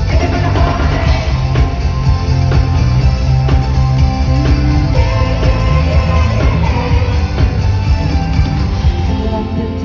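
Live pop concert music: a band playing with a heavy bass beat and singing over it.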